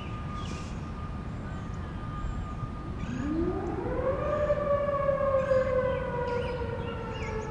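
Outdoor tornado warning siren winding up about three seconds in: a rising wail that reaches full pitch after about a second, then slowly eases lower. Before it, a fainter steady siren tone is already sounding.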